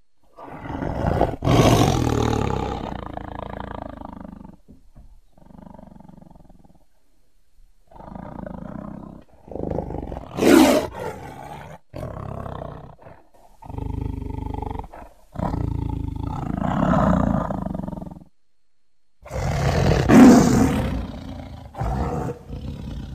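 Dinosaur roar sound effects for an Anchiceratops: a string of about eight separate roars, each one to three seconds long, with short pauses between them. The loudest come about ten seconds in and again near the end.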